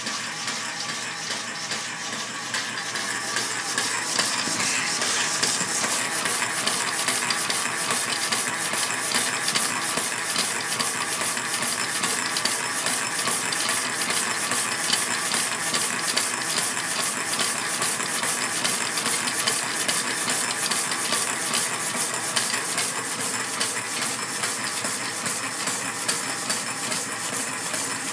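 Keller Jefferson model 601 power hacksaw running, its blade sawing back and forth through a solid aluminium bar in an even stroke-by-stroke rhythm. The sound grows louder over the first few seconds, then holds steady.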